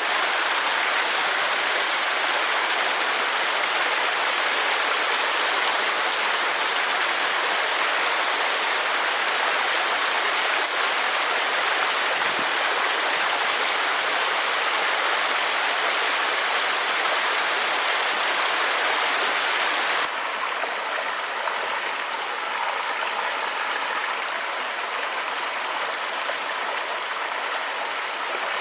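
Creek water rushing steadily, a dense even hiss with no single splash standing out. About two-thirds of the way through, it changes abruptly to a slightly quieter, duller stretch of flowing water.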